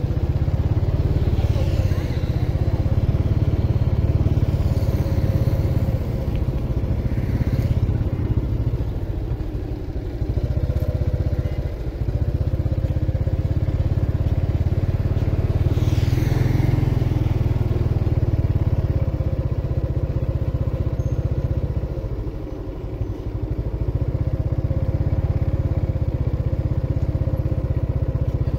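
Motorbike engine running steadily close by, a continuous low hum, with a few passing vehicles sweeping by.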